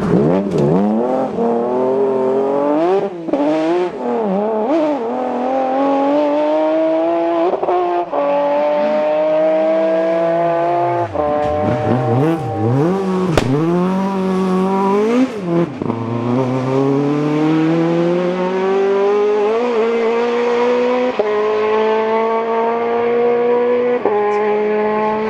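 Ford Escort rally car engines revving hard at full throttle. The pitch climbs through the gears with abrupt drops at each shift, and it swoops down and back up as cars go by.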